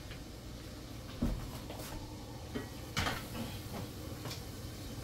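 A few separate knocks and clinks of metal pots and lids being handled on a gas stove, the loudest about a second in and again near the middle, over a steady low hum.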